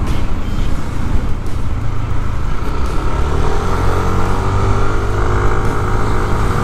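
Yamaha NVX scooter being ridden: a steady low rumble of engine and road noise, with the engine note rising in pitch from about halfway through as the scooter accelerates.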